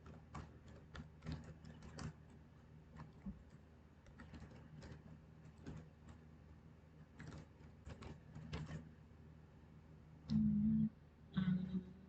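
Computer keyboard typing and mouse clicks, scattered and irregular. Near the end come two louder, short sounds that each hold a steady low pitch.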